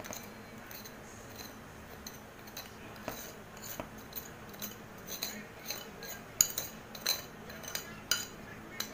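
Metal spoon scraping and tapping against a glass bowl as flour is spooned out of it: a string of light, irregular clinks. They grow busier from about three seconds in and are loudest a little past the middle.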